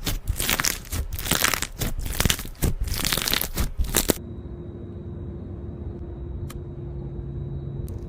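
Slime being squeezed and pressed by hand, with a dense crunchy crackling that stops abruptly about halfway through, after which only a faint steady hum remains.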